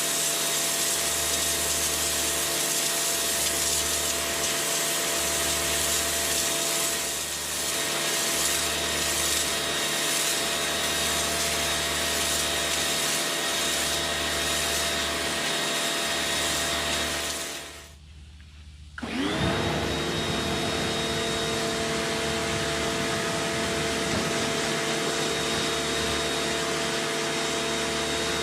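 2000-watt Bossman BPC-4830 electric pressure washer running with a steady motor whine over a pulsing low hum. About eighteen seconds in it cuts out for about a second, then starts again, its whine rising quickly back to speed.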